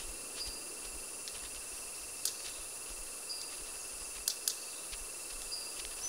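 Steady high insect buzzing of the forest, broken by a few sharp snaps: red-capped manakin wing snaps, one about two seconds in and a quick pair a little later. Short high chirps sound now and then.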